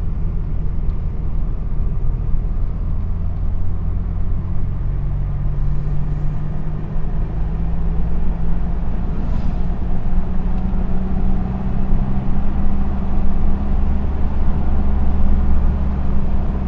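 Engine hum and road noise inside a moving vehicle, steady, with the engine note shifting in pitch a few times.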